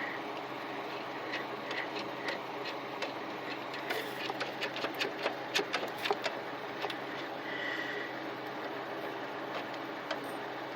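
Transmission clutch release fork being rocked by hand with the slave cylinder piston pushed in, giving sharp metallic clicks and knocks. The clicks are scattered at first and come in a quick run of about a dozen in the middle. A steady low hum runs underneath.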